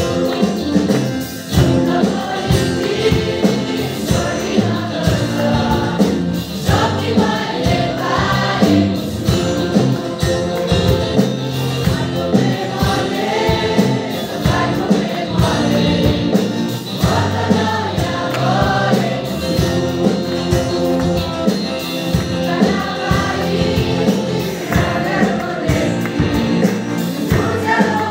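A mixed choir of men and women singing a gospel song in unison over a live band, with acoustic guitar and drums keeping a steady beat, amplified through loudspeakers.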